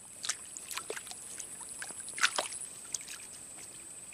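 Light splashing and dripping of water, with scattered crackly clicks and one sharper splash about two seconds in, over a steady high-pitched insect drone.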